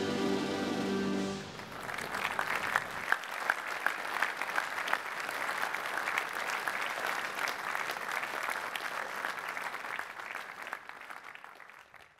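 Band music holding a final chord, ending about a second and a half in, followed by a crowd applauding; the clapping fades out near the end.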